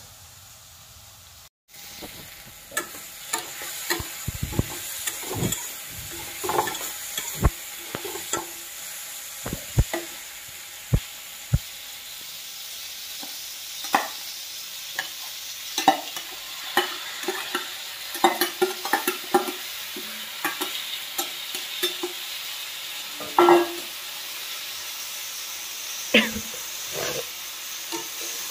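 Diced potatoes frying in a kadai over a gas flame: a steady sizzle with a spatula scraping and knocking against the pan as it stirs. Mung dal is poured in over the potatoes about halfway through and stirred in.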